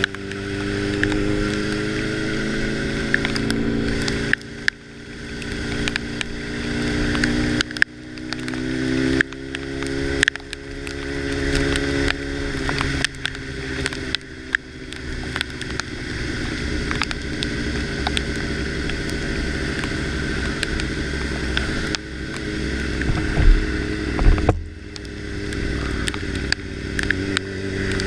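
Motorcycle engine pulling through the gears, its pitch climbing and dropping back at each shift several times, then running at a steadier speed, with wind rush over the microphone. Scattered sharp ticks of raindrops hitting the camera and two heavy thumps a little after two-thirds of the way through.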